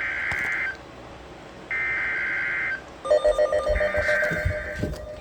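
Emergency Alert System SAME header on NOAA Weather Radio: three bursts of screeching digital data tones, about a second each, the coded header that announces a new warning. From about three seconds in, a second, lower pulsing alert tone and a few low thumps overlap the third burst.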